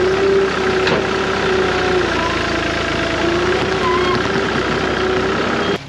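Heavy diesel engine running steadily, with a strong whine that wavers up and down in pitch. It cuts off suddenly near the end.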